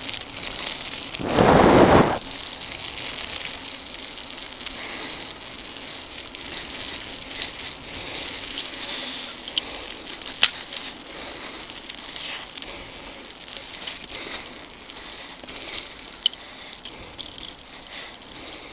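Mountain bike tyres rolling fast over dirt and loose gravel singletrack, a steady crackling rush, with scattered sharp clicks and knocks as the bike rattles over bumps. A brief louder rush comes about a second in.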